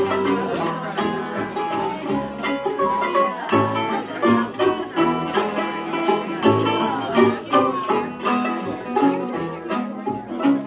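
Live bluegrass-style string band playing an instrumental break: banjo picking over upright bass and guitar.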